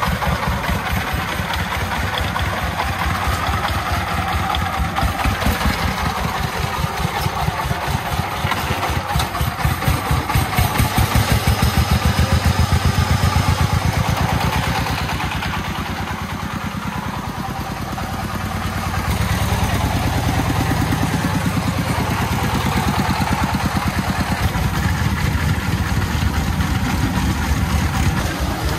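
Single-cylinder diesel engine of a laden công nông farm truck running with a steady, even pulse as the truck manoeuvres. It grows louder about ten seconds in, eases off for a few seconds around the middle, then runs steadily again.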